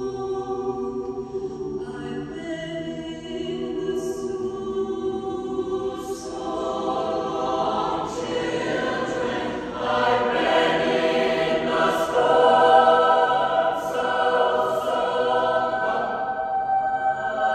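Mixed choir singing an arrangement of a spiritual in sustained chords, building in loudness from about six seconds in to its loudest around twelve seconds.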